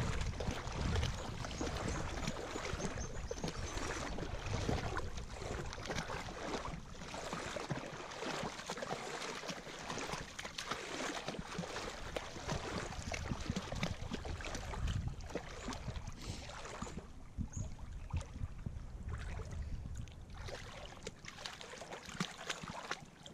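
Water splashing and sloshing irregularly as a golden retriever wades through shallow water.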